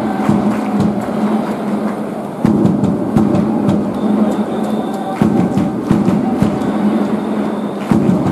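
Baseball stadium crowd: a steady, loud din with many sharp claps or drum beats, swelling afresh about every three seconds.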